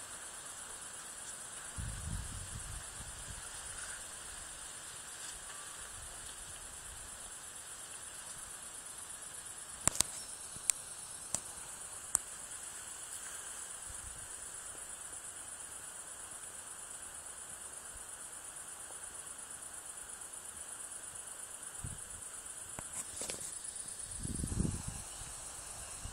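Crickets chirring in one steady high-pitched trill throughout. About ten to twelve seconds in there are four sharp clicks, and low thumps come near the start and again near the end.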